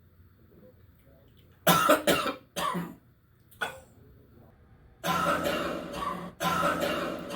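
A person coughing hard: three harsh coughs in quick succession about two seconds in and a single short cough a second later. From about five seconds in comes a long, sustained fit of coughing with only brief breaks.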